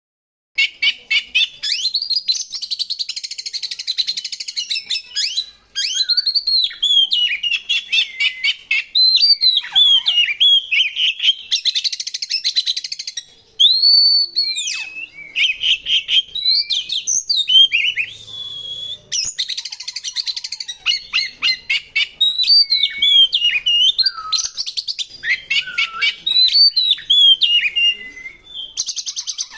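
Oriental magpie-robin (kacer) singing loudly and without stopping: quick whistled slurs alternating with harsh, rapid buzzy rattles, broken by a couple of brief pauses.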